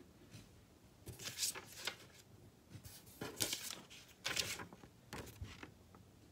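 A sheet of paper rustling and crinkling as it is handled, in several short bursts.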